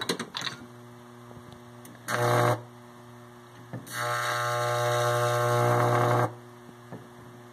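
Microwave oven transformer switched on twice under high-voltage load: a half-second buzzing hum about two seconds in, then a louder steady buzzing hum for about two and a half seconds from about four seconds in, cutting off suddenly. Its high-voltage output is arcing at the terminal.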